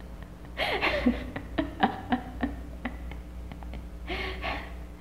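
A girl laughing softly in breathy bursts, a run of them from about half a second in and another short one near the end.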